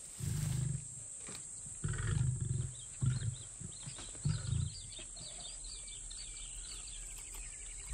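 Lions giving short, deep grunts, about five of them over the first four and a half seconds.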